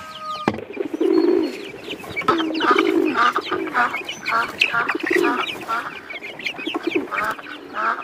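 Chickens clucking in a steady run of separate calls, about one and a half a second, with a sharp click about half a second in.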